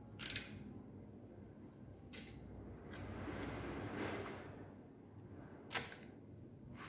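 Tools being handled on a workbench: a few sharp clicks and knocks, the loudest just after the start, with a soft rustling hiss in the middle.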